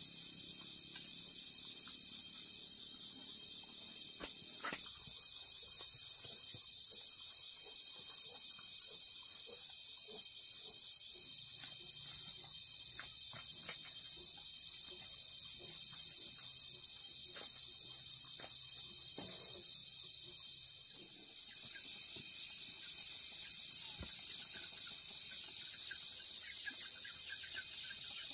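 Steady, high-pitched chorus of insects, continuous throughout, with scattered faint clicks and knocks.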